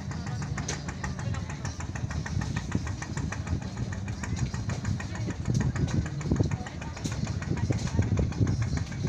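A small engine running, its rapid firing pulses steady at first and growing louder and rougher from about halfway through.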